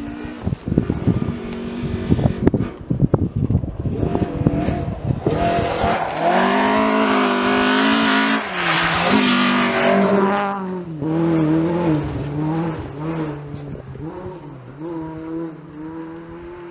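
Rally car on a snow stage approaching and passing at speed, its engine note rising and falling with throttle and gear changes. It is loudest as it goes by, then fades away. A rapid run of sharp knocks comes in the first few seconds.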